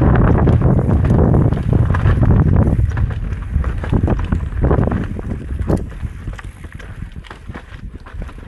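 Electric mountain bike riding down a rough trail: wind rushing over the microphone, tyres on dirt and the bike rattling and knocking over bumps. The wind rush is loudest for the first few seconds and eases after about five seconds, leaving the clattering of the bike.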